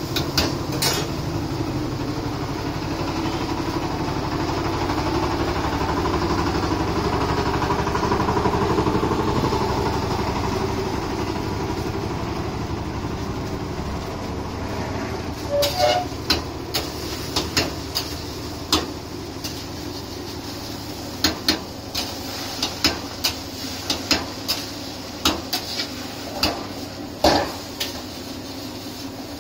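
A steady low mechanical hum fills the first half, swelling and then fading. From about halfway on, a metal spatula knocks and scrapes irregularly against an iron wok as egg fried rice is stirred and tossed.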